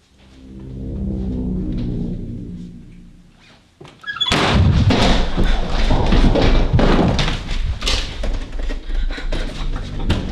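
A low droning swell rises and fades over about three seconds. Then, about four seconds in, loud, rapid thumping and clattering of running footsteps and a door being banged and its locks worked starts and keeps going.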